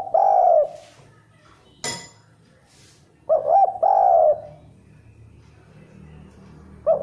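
Spotted dove cooing: a repeated phrase of two quick notes followed by a longer drawn-out coo, coming about every three and a half seconds. A single sharp click falls between phrases, about two seconds in.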